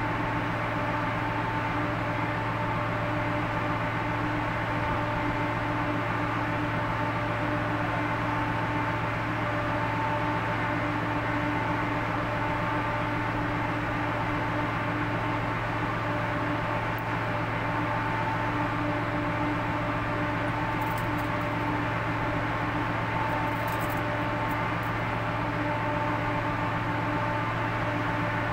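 A ship's engine and machinery running with a steady drone: a low hum with several steady higher tones riding above it.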